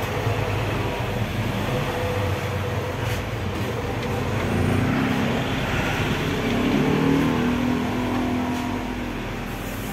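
Steady motor-vehicle engine noise with a low hum, swelling a little in the middle.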